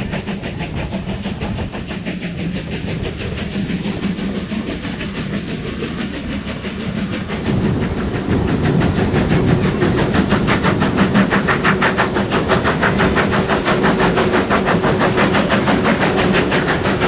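Steam locomotive working hard at speed, heard from an open carriage window: a rapid, even run of exhaust beats over the running noise of the train. About seven seconds in it grows louder and more echoing as the train enters a tunnel.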